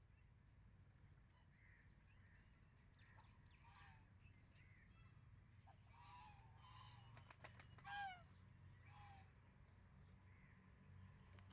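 Birds calling faintly, a scatter of short honking calls that arch or fall in pitch, the loudest a falling call about eight seconds in, with a few sharp clicks just before it over a low steady hum.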